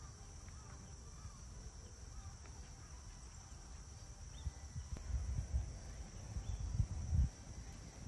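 Outdoor ambience: a steady high buzz of insects, a few short bird chirps in the first part, and wind rumbling on the microphone in gusts that grow louder in the second half.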